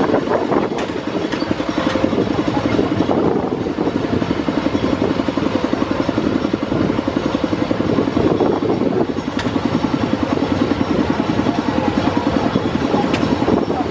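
Tractor engine running steadily with a fast, even chugging as it pulls a loaded passenger trailer along a dirt road.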